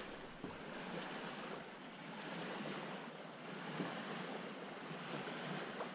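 Steady rushing of wind and lapping water, with a few faint light ticks.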